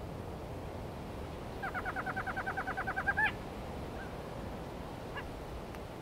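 A night-time call from an unidentified tropical jungle animal: a rapid trill of even pitched notes, about ten a second, lasting under two seconds and ending in a louder rising note, over a steady hiss of wind.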